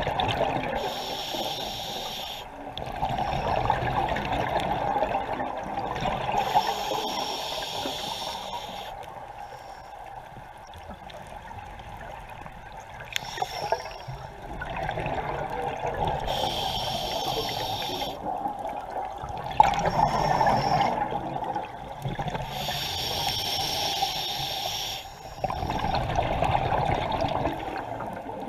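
Scuba regulator breathing underwater: a hissing inhale, then a longer burst of exhaled bubbles gurgling out, repeated about four times with a longer quiet pause near the middle.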